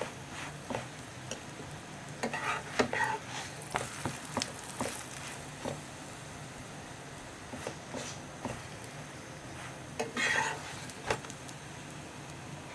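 Paratha frying in oil in a pan: a steady low sizzle, with a metal spatula scraping and tapping against the pan now and then. There are short bursts of clatter about two seconds in and again near ten seconds.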